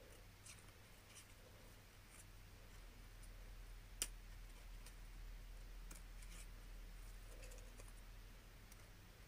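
Faint snips and clicks of scissors cutting paper letters, with one sharper click about four seconds in, over a low steady hum.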